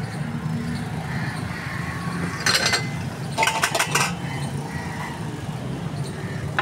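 Steady low hum of street traffic, with two short bursts of metal clinking and clattering about two and a half and three and a half seconds in, as the steel cup and bowl of a cast-iron lever juice press are handled.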